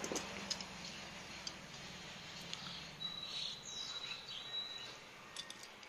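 Scattered light clicks of small steel nuts, washers and tools being picked up and handled on a workbench while a fog-light clamp is assembled. A thin, steady high whistle sounds from about three seconds in for about two seconds.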